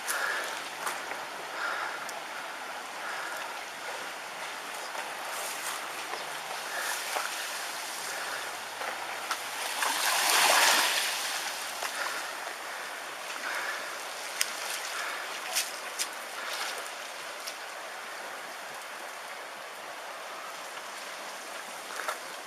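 Tsunami floodwater rushing steadily, swelling louder for a moment about ten seconds in, with a few faint knocks later on.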